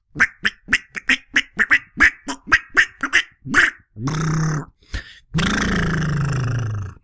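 A man's voice imitating animal calls: a quick run of about a dozen short calls, then a longer call, then a long call that slides down in pitch and stops near the end.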